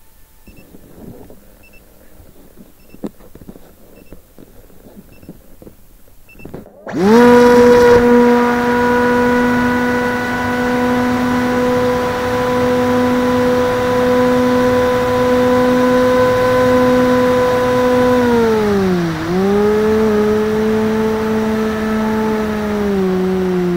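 Faint short beeps repeat about every three-quarters of a second. Then, about seven seconds in, the model plane's electric motor and propeller spin up sharply to a loud, steady hum and hold at launch throttle. Near 19 s the pitch dips and recovers as the throttle is eased, and it steps down again near the end.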